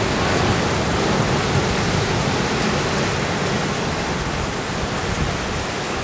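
Ocean surf surging and breaking over rocks in a narrow cove, a steady rush of churning water that eases slightly toward the end.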